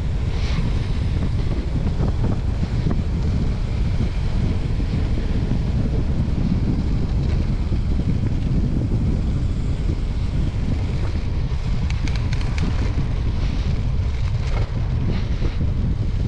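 Wind buffeting the microphone of a camera on a moving bicycle on a dirt road: a steady, heavy rumble, with a few faint short clicks in the second half.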